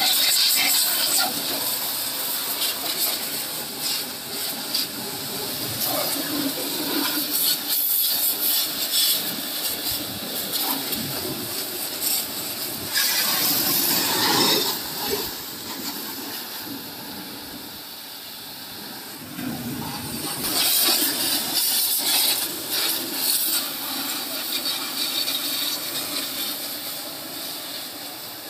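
High-pressure water jet from a washer hose spraying and splashing against a tractor's metal bodywork and tyres. It makes a steady hiss that swells louder and brighter several times as the jet hits the metal up close.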